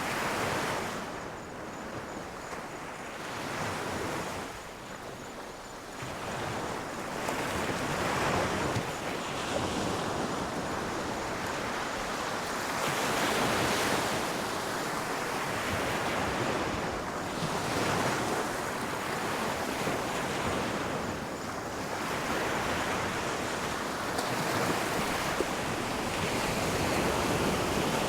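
Ocean waves breaking on a shore, a rushing hiss that swells and recedes every few seconds.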